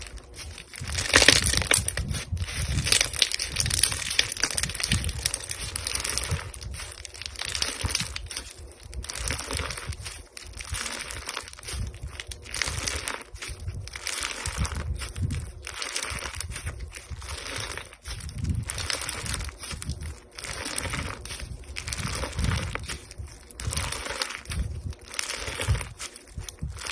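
Slime being squished and pressed by hand, making repeated crackly, popping squishes that come in waves every second or two.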